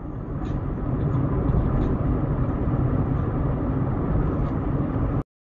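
Steady road and engine noise of a car driving at about 50 km/h, picked up by a dashcam inside the cabin. It cuts off suddenly near the end.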